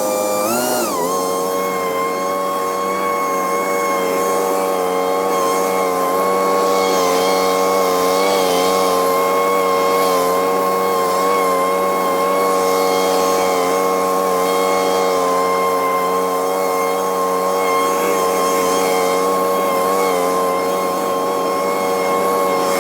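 Scag Windstorm stand-on leaf blower running steadily at high engine speed, its pitch dipping briefly and recovering about half a second in.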